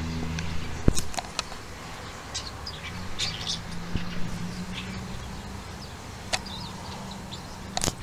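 European starling singing a broken run of sharp clicks, short squeaky whistles and chatter, with the strongest clicks about a second in and near the end. A low steady hum runs underneath.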